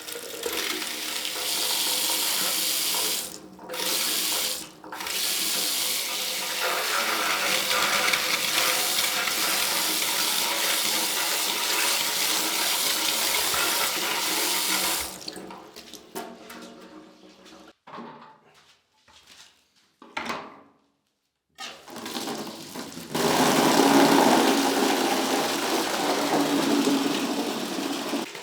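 Water running from a mixer tap into a sink, cut off briefly twice a few seconds in and fading away past the middle, then running strongly again near the end.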